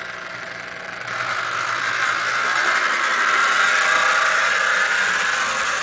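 HO-scale Mantua Tyco Santa Fe diesel model locomotive running along the track, its small electric motor and wheels whirring steadily on the rails; the whir grows louder about a second in.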